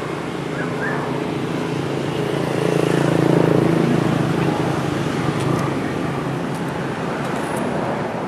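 Steady low drone of a running vehicle engine or road traffic, swelling about three seconds in.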